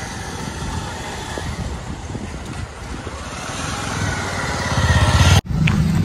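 Road traffic noise: a motor vehicle engine running nearby, steady at first and getting louder over the last couple of seconds.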